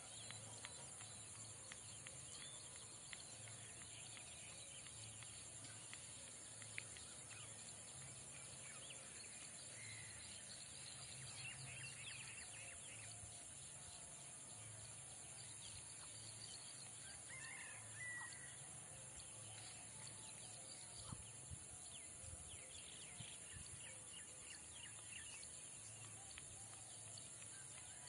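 Faint rural ambience: scattered distant bird chirps over a steady high-pitched hiss.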